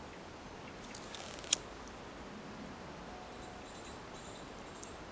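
A pocket lighter being struck: one sharp click about a second and a half in, with a few fainter ticks just before it, over a quiet, steady background hiss.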